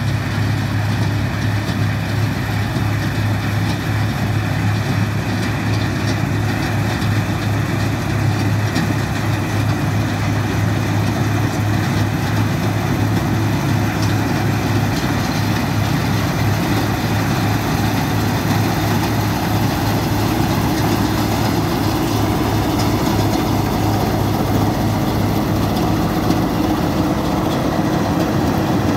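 Bizon combine harvester running steadily while cutting and threshing grain: a diesel engine's constant drone with the machinery running under load.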